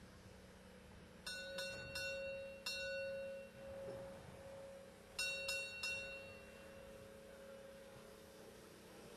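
A bell struck four times in quick succession, then after a pause three more times, each stroke ringing on briefly, over a faint steady hum.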